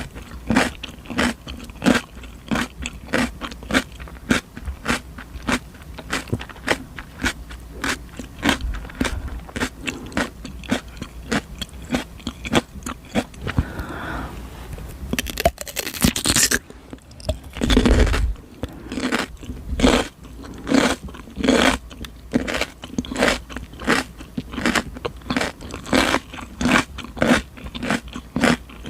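Close-miked crunching of raw cucumber being bitten and chewed, crisp wet crunches coming about two to three a second, with a louder, longer crunch about halfway through.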